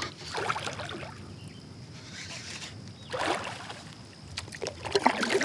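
A hooked smallmouth bass thrashing and splashing at the surface beside the kayak about three seconds in, with water lapping and sloshing around the hull, followed by a few light clicks.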